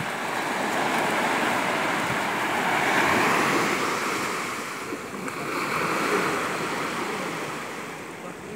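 Small waves breaking and washing up on a sandy beach, swelling and fading twice in slow surges.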